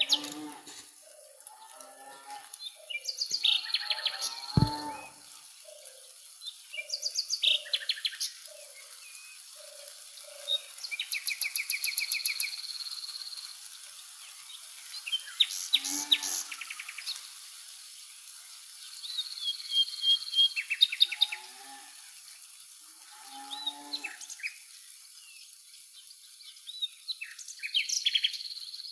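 Several wild birds singing and calling in bursts every few seconds: rapid chirp series, trills and high whistled notes. Through the first half a soft low note repeats about once a second, and there is a single low thump about four and a half seconds in.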